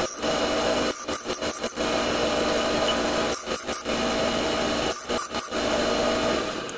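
Bench grinder running, its wheel grinding the tip of a steel drill bit to resharpen it. The steady grinding sound is broken by a few short gaps.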